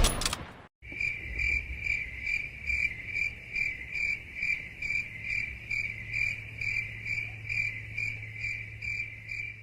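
Crickets chirping in a steady rhythm of about two to three chirps a second: the stock 'crickets' meme sound effect for an awkward silence. A short loud sound sits right at the start, before the chirping begins about a second in.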